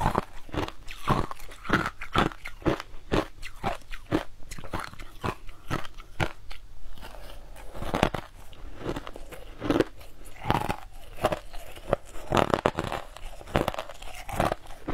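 Crushed ice being bitten and crunched between the teeth, a close, irregular run of sharp crunches, two or three a second.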